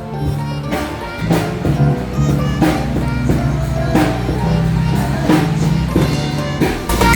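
Upbeat tropical-style background music with a steady drum beat.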